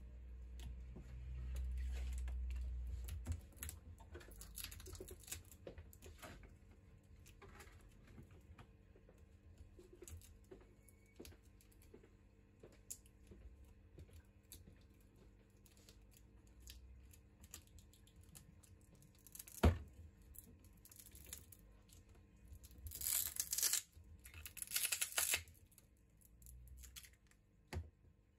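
Small clicks and handling noises of hands working inside an opened Xiaomi Redmi 9T smartphone, with one sharp click about two-thirds of the way through. Near the end come two loud bursts of tearing as the swollen battery is pulled up off its adhesive strips.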